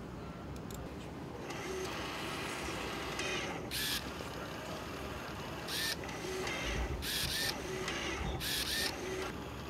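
3D bioprinter running, its motors driving the print nozzle in several short whirring bursts over a steady mechanical hum.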